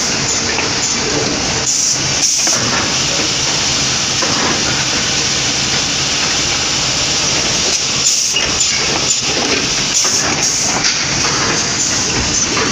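High-speed woodworking cutting machine running: a loud, steady mechanical noise with short knocks and breaks here and there, around two seconds in and again between eight and eleven seconds.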